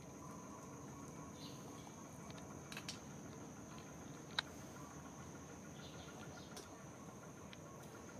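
Faint outdoor ambience with a steady high-pitched insect drone. A couple of soft clicks come near three seconds in, and one sharp tick about four and a half seconds in.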